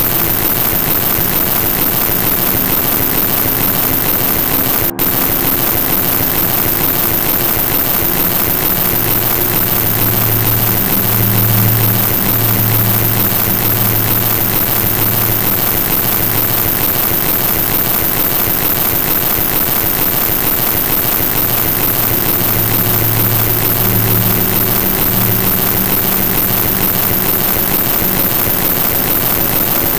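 Loud, steady rushing noise spread evenly from deep to very high pitches, with faint low humming tones that swell and fade. It is presented as a healing sound. It cuts out for an instant about five seconds in.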